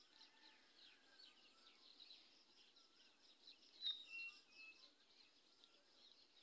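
Faint outdoor ambience of a flooded paddy field: a steady pulsing insect chorus with scattered bird chirps. One short, louder chirp with a click comes just under four seconds in.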